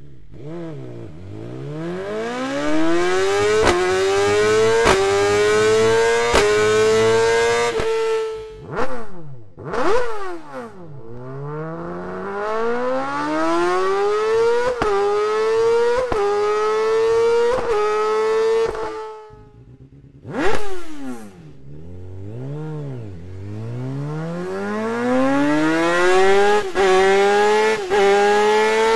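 Three inline-four superbikes with Akrapovič Evolution Line exhausts take turns: a BMW S 1000 RR, then a Honda CBR1000RR-R Fireblade, then a Kawasaki Ninja ZX-10R. Each one's exhaust rises in pitch as it accelerates through the gears, with a sharp click at each upshift. Before the Honda and the Kawasaki there are a few quick throttle blips, the pitch jumping up and dropping straight back.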